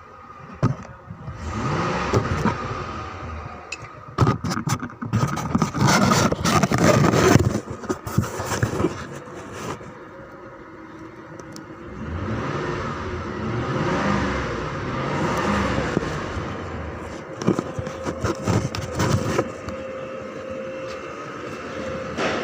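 A motor vehicle engine running, its pitch rising and falling several times, with a loud stretch of clattering, scraping noise in the middle.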